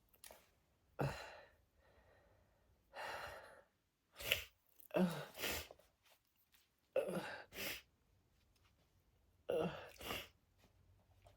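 A person's sneeze build-up from a stuck sneeze being induced: a series of sharp, catching gasps and sighing breaths, each about a second long and one to two seconds apart.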